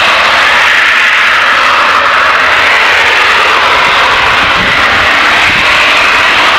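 Natural gas blowdown at a compressor station: high-pressure gas venting from a stack with a loud, steady rushing hiss, like a jet engine, that does not let up.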